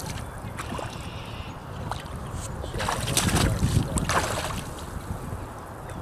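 Rubber boots and waders wading through shallow, muddy water: several sloshing steps, the loudest about three to four seconds in, over a steady rumble of wind on the microphone.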